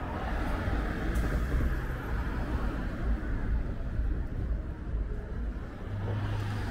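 City street ambience: a steady low rumble of road traffic, with a short sharp click about a second in.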